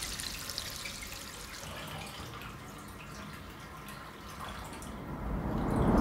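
Water running from a bath tap and dripping into the tub, with small splashy drips over a steady trickle. A low rumble swells up near the end.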